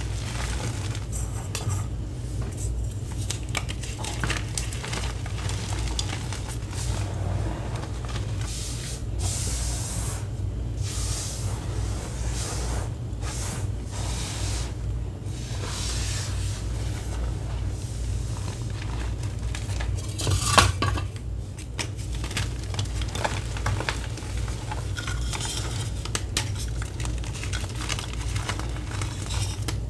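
Homemade gym chalk (chalk, cornstarch, acetone and citric acid) being crushed and rubbed between bare hands: soft crumbling and hissing swishes of powder, with a sharper crunch about twenty seconds in. A low steady hum runs underneath.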